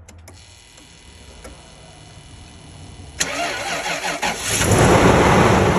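Faint steady hum, then about three seconds in a car engine starts with a sudden burst and runs loud and rough, cutting off abruptly.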